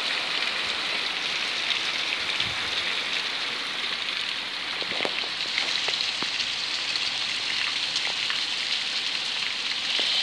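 Steady rain falling on roofs and pavement: an even hiss, with scattered drops ticking close by.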